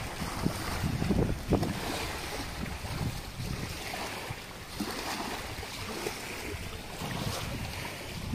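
Small waves lapping and washing against a sandy shore and a concrete jetty, with gusts of wind rumbling on the microphone, strongest in the first second and a half.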